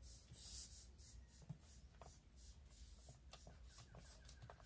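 Faint, scattered clicks and rustling of green cowpea pods being split open and stripped by hand.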